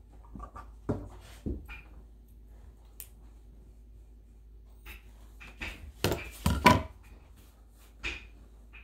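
Scissors snipping and trimming a frog fishing lure: scattered short snips and handling clicks, with a louder cluster of snips and knocks about six seconds in.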